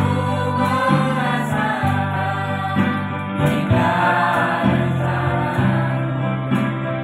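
A small mixed group of young men and women singing a Christian worship song together in parts, over an accompaniment of held low notes.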